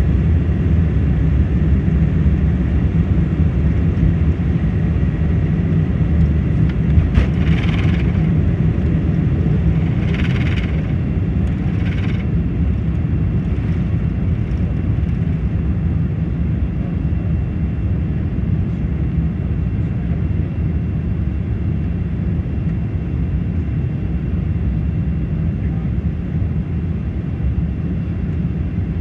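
Boeing 747's engines at takeoff power, heard inside the cabin over the wing: a steady, loud low rumble through the climb-out that slowly grows a little quieter. A few short, higher-pitched sounds stand out briefly about seven, ten and twelve seconds in.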